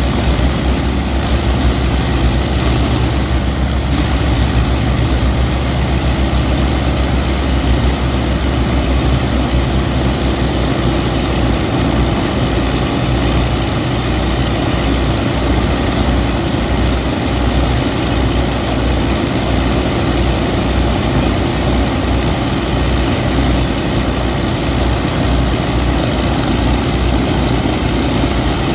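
Avro Lancaster bomber's Rolls-Royce Merlin V12 piston engines idling on the ground, a loud, steady running sound.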